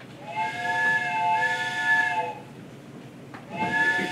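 Steam train whistle sound effect: a long chord of several steady tones held about two seconds, then a second blast starting near the end.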